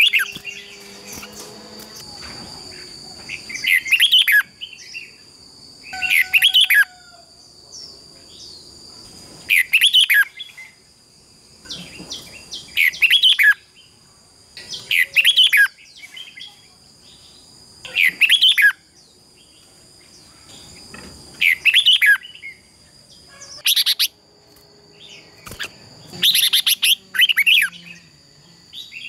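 Red-whiskered bulbuls singing in competition: short, loud song phrases about every two to three seconds, over a steady high-pitched whine.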